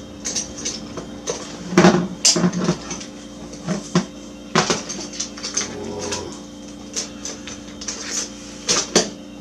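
Metal hand tools clinking and clattering on a workbench as they are picked up, handled and set down, in irregular knocks, over a steady low hum.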